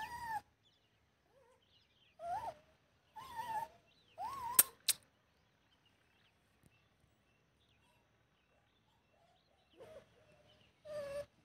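Puppies yelping in short, high calls that rise and fall in pitch, about six spread over the stretch, with a gap in the middle. Two sharp clicks come close together about four and a half seconds in.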